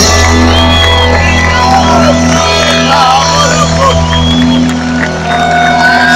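Live rock band holding sustained chords, loud over a stadium PA, with the crowd cheering and whistling over the music.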